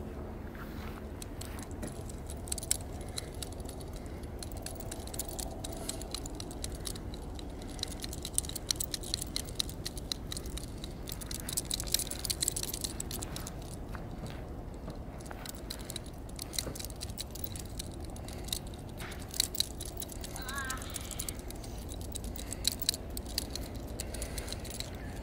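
Metal tags on a dog's collar jingling in scattered light clicks as the dog shifts about, over a low steady rumble.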